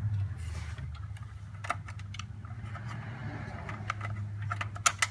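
Small clicks and taps of a screw and screwdriver being handled at the motherboard's mounting hole, a few sharp ones near the end, over a steady low hum.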